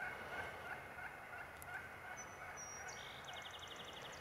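Faint gobbling of a wild turkey gobbler, a run of rapid rattling notes about four a second that fades out about two seconds in. A small songbird gives a thin whistle and then a fast high trill near the end.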